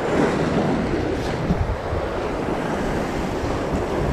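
Sea surf washing over shoreline rocks, with wind buffeting the microphone.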